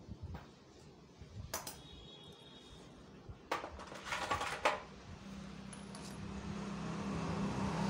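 Small metal engine parts clinking and tapping against the aluminium crankcase of a Hero HF Deluxe engine during assembly. One clink rings briefly about one and a half seconds in, and a louder cluster of clinks comes around four seconds. A low steady hum rises in the background over the last few seconds.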